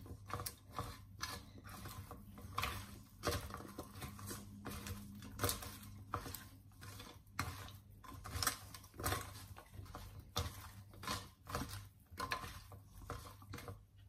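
Hands tossing and mixing oil- and spice-coated raw potato cubes in a stainless steel bowl: a steady run of soft, irregular clicks and rustles, a few each second, as the cubes tumble against each other and the metal.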